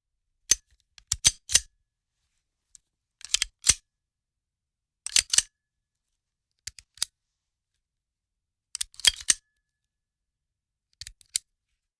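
Handgun handling sounds: short clusters of sharp metal clicks and clacks, such as a slide being racked, a magazine seated and a hammer cocked, separated by silence. Six or so separate bursts, each of two to four quick clicks.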